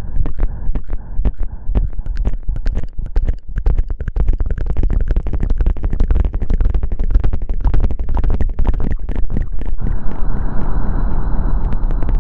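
Fingers scratching and rubbing right on the microphone in ASMR hair-washing style: a fast, uneven stream of crackles over a deep rumble, with a steady hiss joining near the end.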